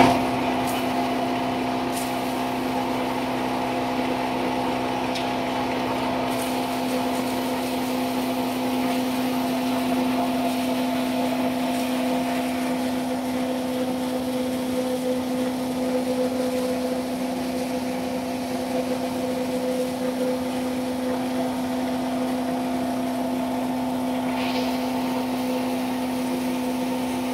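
3 HP blower pulverizer running steadily while grinding dried red chillies: its electric motor belt-drives the hammer grinding chamber and blower, giving an even, unbroken hum with a steady whine.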